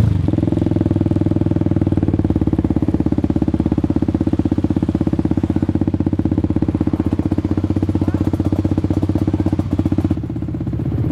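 Kawasaki Ninja motorcycle engine idling steadily with an even, rapid pulsing after the throttle is closed. It drops quieter about ten seconds in.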